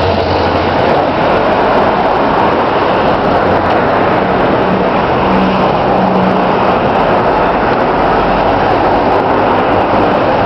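Loud, steady street noise of traffic, with a faint engine hum in the middle.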